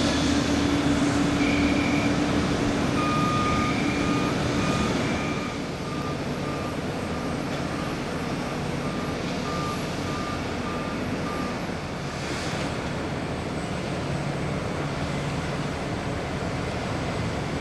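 Airport apron noise: a steady roar of aircraft and ground equipment, with a ground vehicle's reversing beeper sounding a little more than once a second from about three seconds in until about eleven seconds in.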